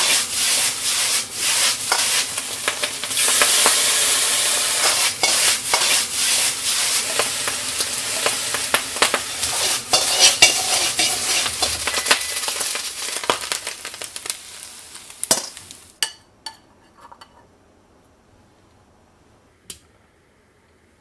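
Fried rice sizzling hard in a hot wok as it is stir-fried and tossed, with many sharp clacks of the spatula against the pan. The sizzle cuts off suddenly near the end, leaving a few light knocks.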